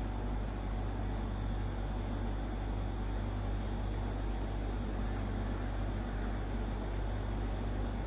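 Refrigerator compressor, a replacement LG unit, running with a steady low hum while the system is being charged with R134a refrigerant.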